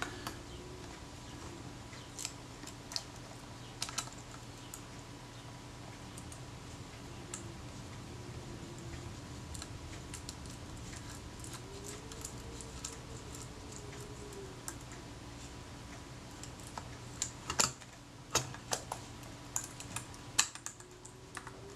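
Small metal camera parts and tweezers clicking and tapping against a Kodak Retina Reflex IV body as the rewind knob is fitted: scattered light clicks, busiest in the last few seconds.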